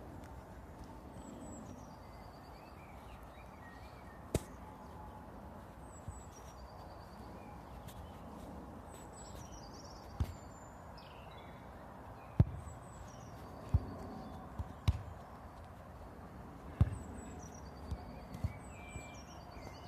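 A bird singing a short, high, falling phrase that repeats every few seconds, over a steady outdoor background, with about a dozen sharp knocks and thumps scattered through it, most of them in the second half.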